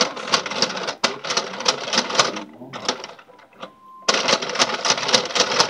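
Plastic bracelet-maker toy being run: its spools and gears clatter in a rapid stream of clicks. The clatter stops a little past halfway and starts again, just as loud, about four seconds in.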